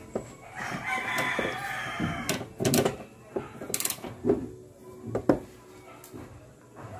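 A rooster crows once, a long call starting about half a second in. Several sharp clicks and knocks follow.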